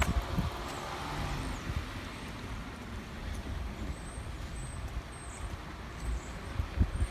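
Road traffic on a wet street: a steady hiss of car tyres and engines passing by.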